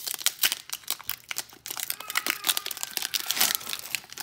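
Foil wrapper of a Pokémon Sun & Moon Cosmic Eclipse booster pack being torn open at the top and pulled apart, crinkling and crackling continuously.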